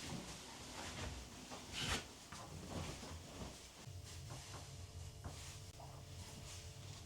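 Quiet household handling sounds: small knocks, taps and rustles, with a brief louder swish about two seconds in. A low steady hum sets in about four seconds in.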